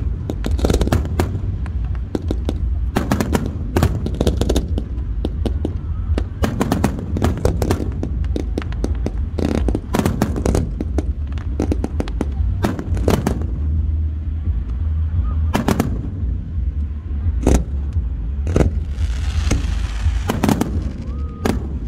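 Fireworks display: a rapid run of sharp cracks and bangs from aerial shells and comets, several a second, over a constant low rumble. Near the end a hissing crackle joins in.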